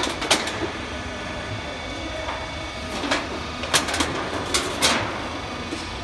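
Sharp clicks and knocks from a crimped steel roof panel being handled, irregular and bunched in the second half, over a steady low hum.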